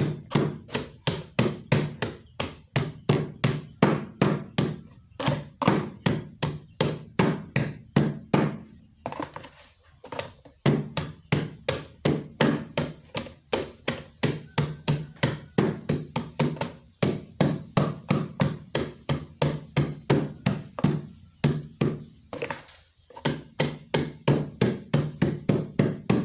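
Garlic and herb leaves being pounded in a cut-open plastic jerry can used as a mortar: steady rhythmic thuds about three a second, pausing briefly twice, as the herbs are crushed toward a wet mash.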